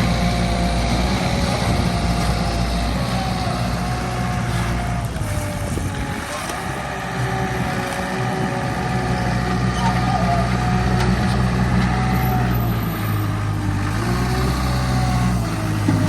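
Small bulldozer's diesel engine running under work. A wavering higher whine rides over it. The engine eases briefly about six seconds in, then picks up again.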